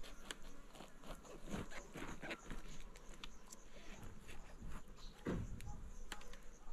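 Knife cutting into a raw head of white cabbage on a wooden board: irregular crisp crunches and clicks as the tight leaves split, with a fuller knock about five seconds in.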